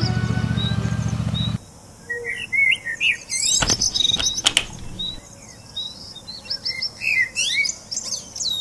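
Loud background music cuts off abruptly about a second and a half in, leaving small songbirds chirping and calling. Two sharp knocks come a little under a second apart midway.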